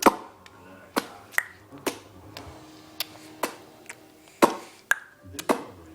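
A young child making sharp clicking noises with the mouth: about ten quick clicks or pops at irregular spacing, a few with a brief ring after them.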